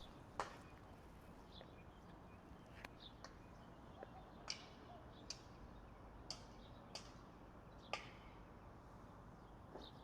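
Near silence: faint background tone with about ten short, sharp clicks scattered irregularly through it, plus a few brief high chirps.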